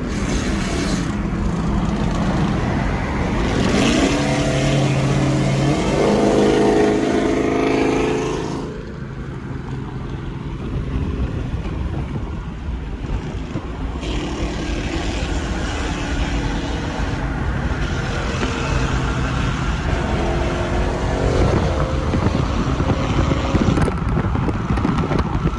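Car engine revving hard and accelerating, climbing in pitch twice in the first eight seconds, then easing off to steady engine and road noise at highway speed.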